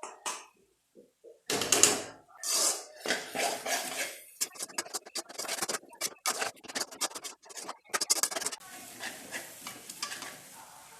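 A spoon scraping and knocking against a cooking pan as a spiced filling is stirred, in quick irregular strokes that thin out to a faint steady hiss near the end.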